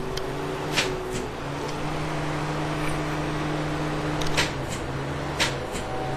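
1992 Pontiac LeMans starter clicking a few times, seconds apart, as the key is turned, without the engine cranking: the starter is failing. A steady hum runs underneath.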